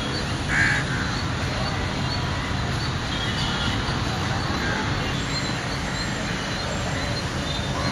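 Open-air background noise at a cricket ground: a steady low rumble of distant traffic, with small birds chirping over and over and one brief louder call about half a second in.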